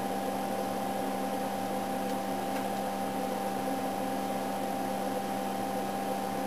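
A steady hum with a few fixed tones, unchanging throughout.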